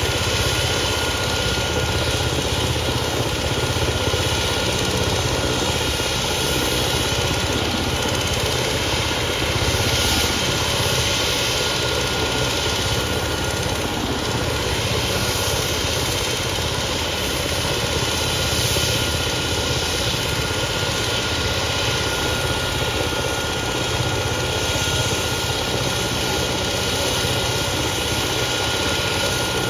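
Vehicle engine idling steadily, with a thin constant whine above the rumble.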